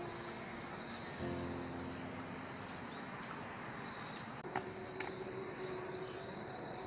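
Soft background music with held notes, alongside rapid, high cricket-like chirping.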